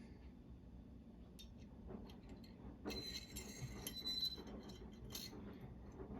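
Faint small clicks and metallic clinks of pepper grinder parts being handled and fitted together by hand, with a busier cluster of clinks about three seconds in.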